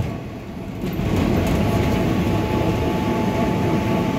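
Tram running on its rails, heard from inside the car: a steady low rumble that dips briefly about a second in, then picks back up, with a faint high whine joining about halfway through.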